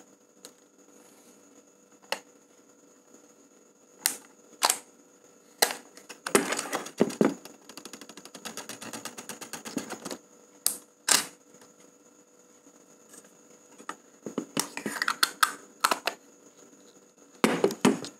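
Handling of a Canon EOS 650D DSLR body: a series of sharp plastic clicks and knocks with rubbing between them, including a fast run of fine ticks about eight seconds in, as the camera is moved about and set down.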